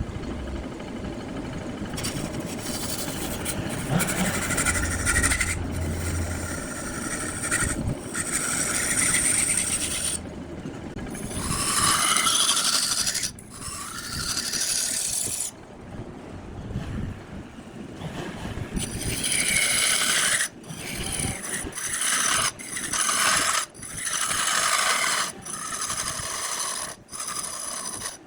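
Wood lathe turning a block while a cutting tool scrapes and rasps against the spinning wood. The cutting stops and starts abruptly several times, more often in the second half.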